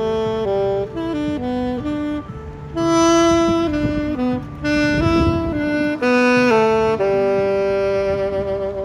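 A street musician playing a slow melody on a single instrument, one note at a time. It moves through short notes and settles on a long held note about seven seconds in.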